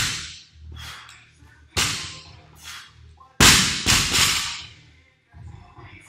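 A loaded barbell with bumper plates strikes the gym floor between deadlift reps: one impact right at the start, another under two seconds later. Then it is dropped about three and a half seconds in, the loudest bang, with a second knock about half a second later as it bounces.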